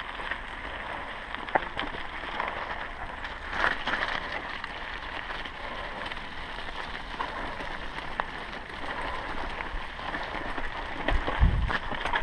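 Mountain bike riding over loose sandy gravel, heard from a bike-mounted action camera: a steady crunch and rattle of tyres, chain and frame with scattered clicks and knocks. Near the end, heavy low buffeting on the microphone.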